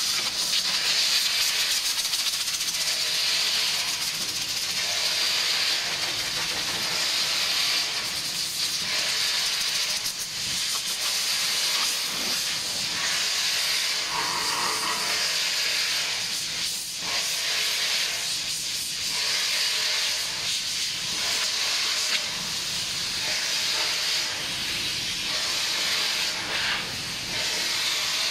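Compressed air hissing from a hose-fed blow gun, swelling and dipping without stopping, as it blows residual coating powder out of a powder-coating booth's steel funnel during a colour change.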